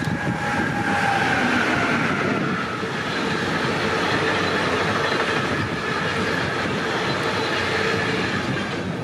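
Train passing on the rails, a steady, loud rush of wheel and running noise, with a whining tone that drops in pitch over the first couple of seconds.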